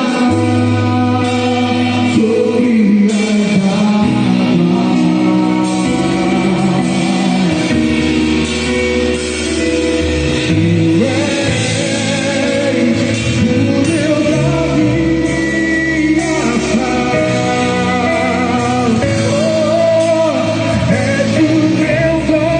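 Gospel worship song with singing over a band accompaniment, with sustained low instrumental notes beneath the voice.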